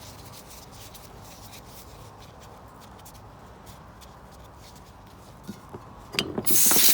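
Faint rubbing and a few light clicks of small carburetor parts being handled, then, about six seconds in, a loud hiss of an aerosol cleaner spray starts.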